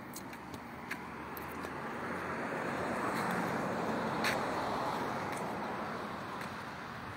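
A car passing on the road: the noise swells over a couple of seconds, peaks near the middle, then fades away. A few light clicks, the sharpest about four seconds in.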